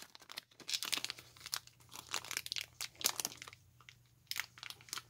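Thin plastic sleeve crinkling as a baseball card in a rigid clear plastic case is worked out of it, a run of short rustles and clicks with a brief lull a little before four seconds in.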